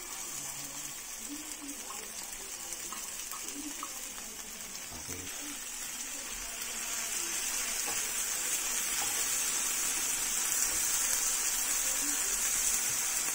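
Corned beef and minced garlic sizzling in hot oil in a frying pan, a steady hiss that grows louder from about halfway through, with faint knocks of a wooden spatula stirring.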